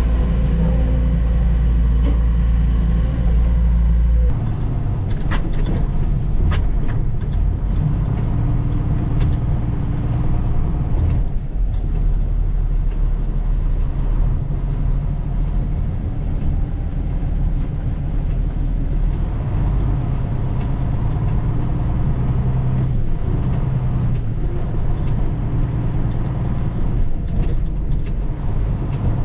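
Heavy diesel log truck engine running under way, steady throughout, with a sudden change in its low note about four seconds in and a few sharp knocks soon after.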